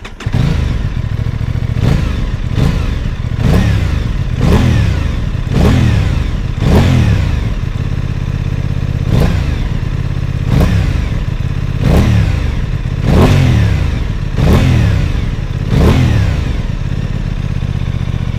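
Aprilia Tuono 660's parallel-twin engine through its stock exhaust, revved at standstill in about a dozen quick blips a second or so apart, each rising sharply and dropping back to idle. It idles steadily for the last couple of seconds.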